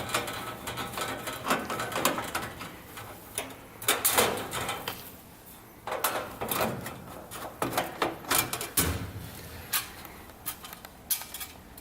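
Scattered clicks and light metal clatter of screws being taken out and sheet-metal trim panels being handled on a dual fuel range.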